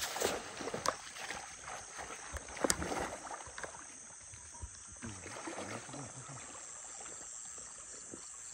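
Water splashing and sloshing as a fishing net is worked in floodwater, busiest in the first three seconds or so with two sharp knocks, then settling. Insects chirr steadily throughout.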